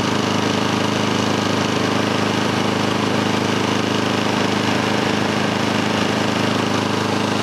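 Kohler 149cc single-cylinder lawn mower engine running loudly and steadily at a constant speed. Its PCV oil drain is plugged, so it is blowing oil out through the PCV vent into the air box.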